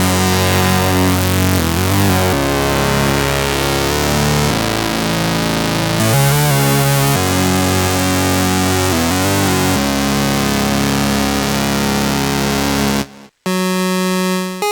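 Retro chiptune-style synthesizer music from the UVI 8-Bit Synth: thick, gritty layered synth parts over bass notes that change every second or two. About thirteen seconds in it cuts out briefly, then a single plain held tone sounds.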